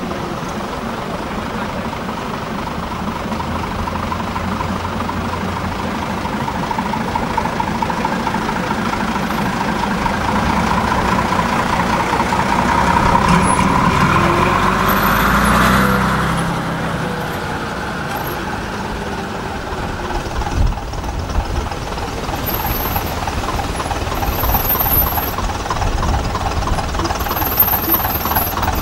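AEC three-axle lorry's diesel engine driving past, growing louder to a peak about halfway through and dropping in pitch as it goes by. In the last few seconds a heavier, uneven knocking diesel, the AEC Routemaster bus's engine running.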